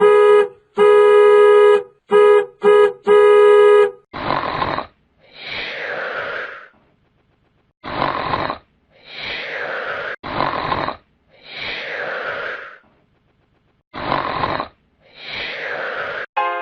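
Comedy sound effects: a buzzy horn honked five times in quick succession, then four rounds of a short harsh rasp followed by a longer hiss with a falling whistle.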